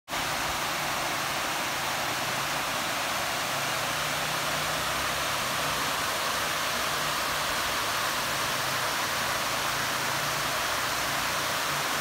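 Steady rush of a small waterfall, water cascading over rock slabs into a pool.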